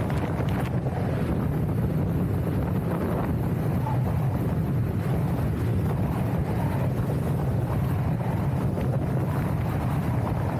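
Steady wind buffeting the camera microphone at riding speed on an electric unicycle, a constant low rumble with no breaks.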